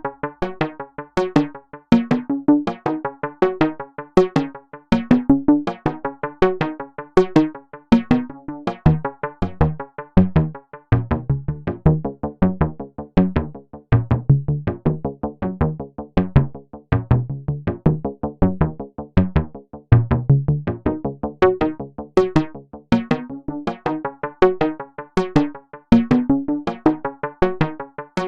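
Lively 80s- or 90s-style synthesizer music: a quick, even pulse of short keyboard notes, with a lower bass line coming forward in the middle stretch.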